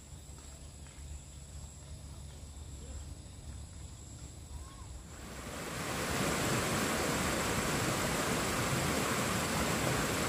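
Steady hiss of falling rain that fades in and swells about five seconds in. Before it, only a low wind-like rumble with a few faint ticks.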